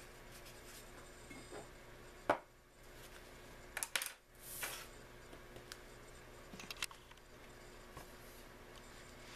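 Desk handling noises. A sharp click comes about two seconds in, a quick cluster of clicks and a short rustle follow around four seconds, and a few lighter clicks come later.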